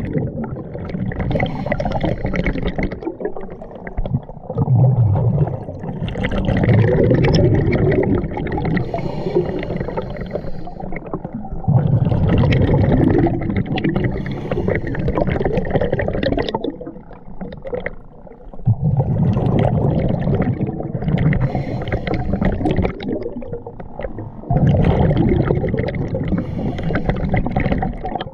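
Scuba diver breathing underwater through a regulator: five bursts of exhaled bubbles a few seconds apart, with quieter stretches between them.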